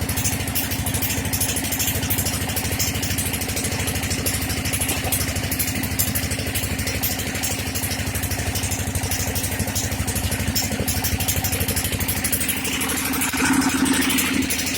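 Dompeng engine, a small single-cylinder diesel of the kind that drives the suction pump in small-scale gold mining, running steadily. It gets briefly louder near the end.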